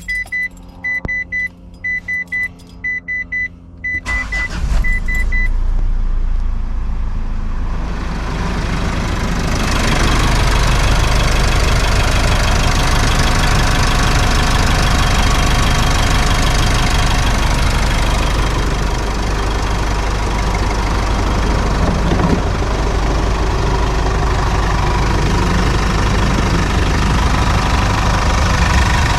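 A car's warning chime beeps repeatedly, then about four seconds in the Mitsubishi Challenger's engine cranks, catches and settles into a steady idle: its first start after an oil change, refilled with Castrol Edge 5W-30.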